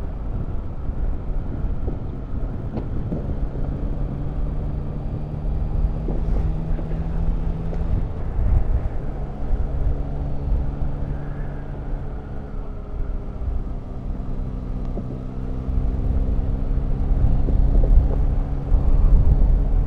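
Motorcycle engine running under way over a steady low rumble. The engine note shifts about eight seconds in, then climbs and grows louder near the end as the bike accelerates.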